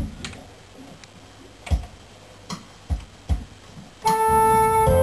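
A few soft clicks and knocks, then about four seconds in a Yamaha AR80 electronic home organ starts playing, holding sustained notes.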